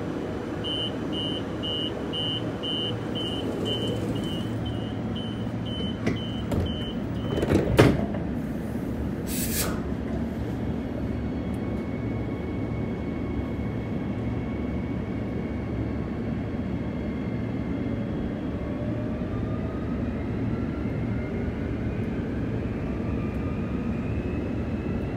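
A rapid run of high door-warning beeps, about three a second, sounds for roughly six seconds on a Bombardier B-series electric train, then the sliding doors shut with a loud thud about eight seconds in. A brief hiss follows, then the steady rumble of the train moving off, with a whine that rises in pitch from about twelve seconds on.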